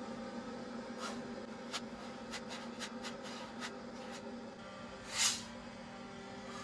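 Short scraping strokes of a hand-held block or spreader on a fibreglass boat deck, coming irregularly, with a louder, longer scrape about five seconds in, over a steady low hum.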